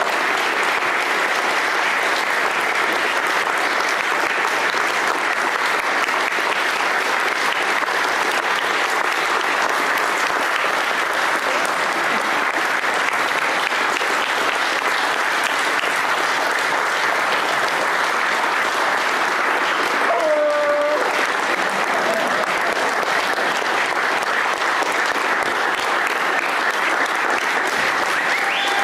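Large audience clapping steadily in sustained applause, with a single voice calling out briefly about two-thirds of the way through.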